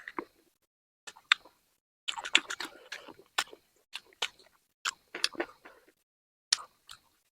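A person chewing spicy chicken: a run of short, sharp mouth clicks at irregular spacing with brief pauses.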